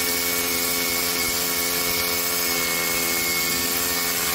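DCK KRH20V-26 brushless cordless SDS rotary hammer drilling steadily into a stone wall with a long SDS bit, a continuous hammering drive with a high whine above it.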